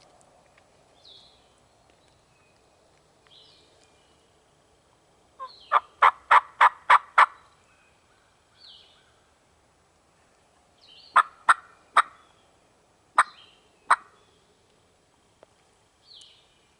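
Turkey calls: a quick run of about six sharp, loud notes about five seconds in, then five more spaced-out sharp notes later on. Faint short songbird chirps come and go between them.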